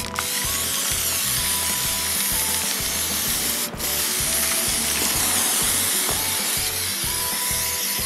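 Aerosol spray-paint can hissing in long sprays, cutting off briefly just after the start and again about halfway through, over background music with a steady beat.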